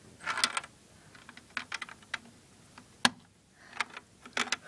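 Plastic clicks and taps of LEGO minifigures and pieces being handled and set down on a LEGO baseplate: a brief rustle at the start, then a scattered run of sharp ticks, the loudest about three seconds in.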